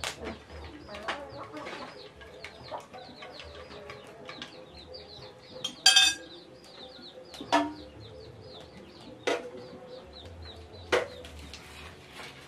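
Chicks peeping over and over in short, high, falling chirps, with a sharp knock every second or two. The loudest knock comes about six seconds in.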